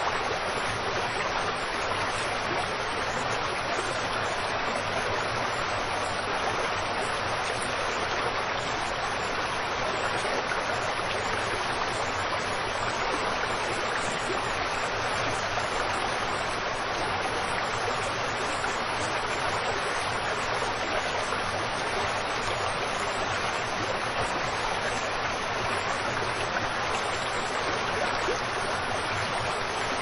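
Waterfall: falling water rushing steadily as an even hiss, with little deep rumble.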